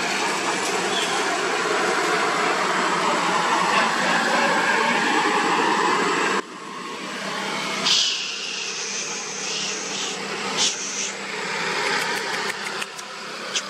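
Dense, steady background noise that cuts off abruptly about six seconds in. A couple of seconds later come several short, high-pitched, rising-and-falling squeals from a monkey.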